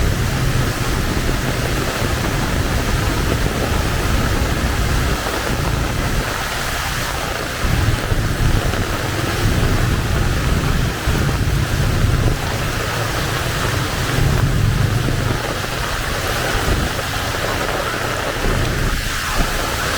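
Heavy rain pouring down in a steady hiss, with a low rumble underneath that swells and eases.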